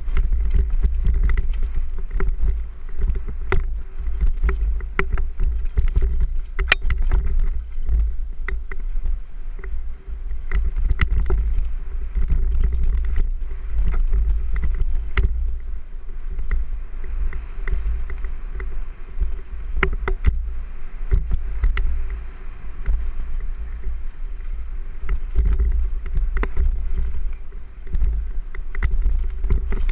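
A mountain bike rattling and clattering down a rough dirt trail, with many sharp knocks as the tyres hit rocks and roots, under a heavy low rumble of wind buffeting the microphone.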